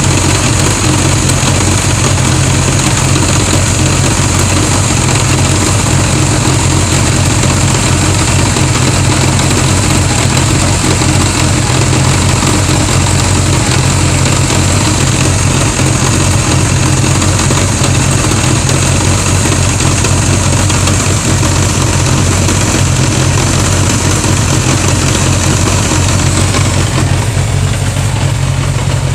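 1981 Honda GL1100 Gold Wing's flat-four engine running steadily at idle. Near the end the higher hiss in the sound drops away.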